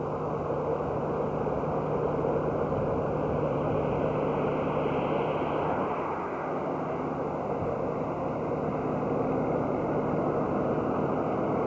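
A motor vehicle driving: steady engine hum and road noise, dipping slightly about halfway through.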